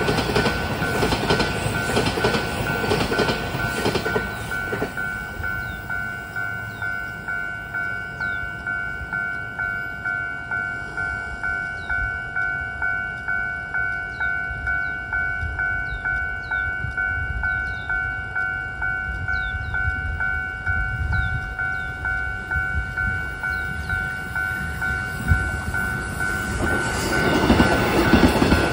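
Level-crossing warning bell ringing in steady repeated strokes, about one and a half a second. A Taiwan Railways electric train is passing at the start and its rumble dies away about four to five seconds in. Another train's rumble swells in near the end.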